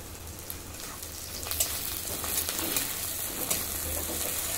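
Sliced onions and tomato pieces sizzling in hot oil in a metal kadai, with a metal spatula scraping and stirring them. The sizzle grows louder about a second and a half in, with a few sharp scrapes of the spatula on the pan.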